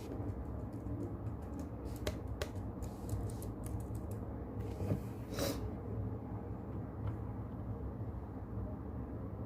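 Typing on a keyboard: a run of quick key clicks in the first half, then a few scattered clicks, over steady brown noise. A brief swish comes about five seconds in.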